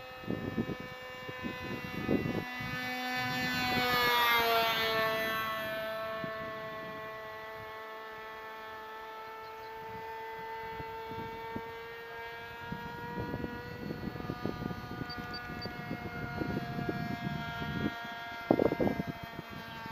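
Magnum XL 25 two-stroke glow engine of an RC model plane droning in flight. It grows loudest about four seconds in and drops in pitch as the plane passes, then runs on as a steadier, fainter drone. Gusts of wind buffet the microphone, hardest near the end.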